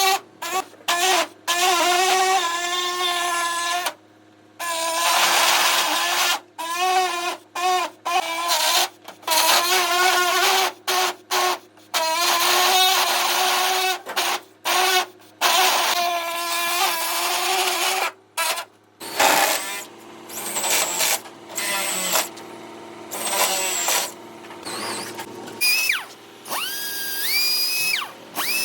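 Electric power tools, such as drills and a jigsaw cutting the truck-bed side gate, running in short, abruptly cut clips. Each clip carries a motor whine whose pitch wavers under load. Near the end a few whines rise as a tool spins up.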